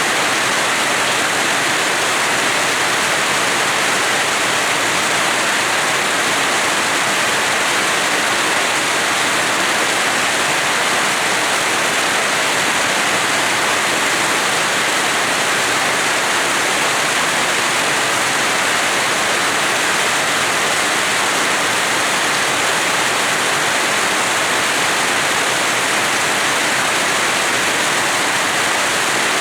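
Rain falling steadily, an even hiss with no single drops or other sounds standing out.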